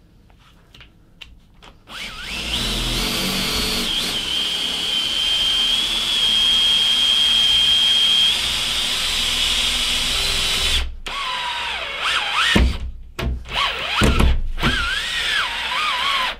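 Festool cordless drill driving a self-tapping screw through an OSB panel into a steel drywall stud. After about two seconds the motor starts and runs steadily with a high whine for roughly nine seconds, then runs in short stop-start bursts, its pitch dipping under load.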